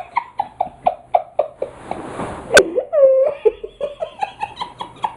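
A person laughing hard in a rapid run of short voiced pulses, about four a second, with a sharp click about halfway through followed by a high-pitched whining squeal of laughter.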